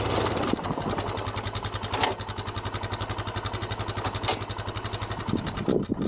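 A quad (ATV) engine idling with a fast, even firing beat, which stops near the end.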